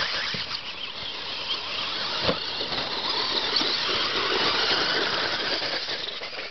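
Radio-controlled off-road racing cars driving on a dirt track, their small high-revving motors making a high-pitched whine that rises and falls as they pass, with a short knock about two seconds in.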